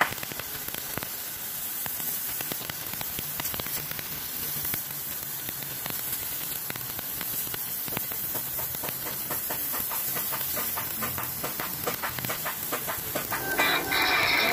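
Water jet from a pressure spray nozzle on a hose blasting a concrete floor: a steady hiss with fine spattering ticks. Music comes in near the end.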